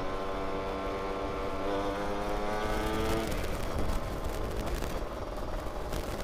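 Yamaha F1ZR's 110 cc two-stroke engine running at a steady pitch while riding, its note dropping away about three seconds in and leaving wind and road noise.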